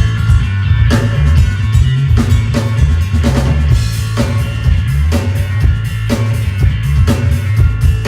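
Rock band playing live, led by a drum kit with kick and snare hits about twice a second over a loud, moving bass line.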